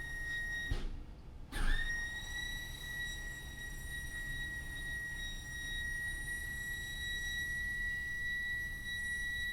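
A steady high-pitched tone over a low rumble. It cuts out for about half a second around the one-second mark, then comes back with a short upward slide and holds level.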